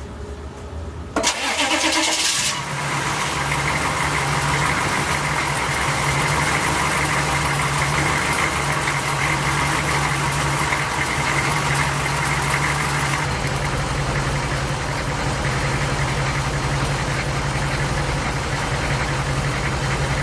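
1971 Toyota Land Cruiser's straight-six engine cranked by the starter for about a second, then catching and settling into a steady idle. About thirteen seconds in, the sound turns deeper and duller.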